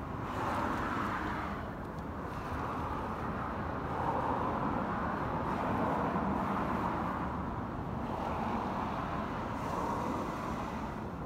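Motor vehicle noise: a steady rushing with a low rumble underneath, swelling and fading several times.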